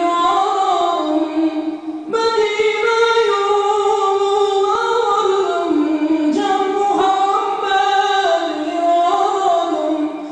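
Unaccompanied singing of an Islamic hymn through a hall's sound system: a single melody in long held notes that slide from pitch to pitch, with new phrases starting about two and six seconds in.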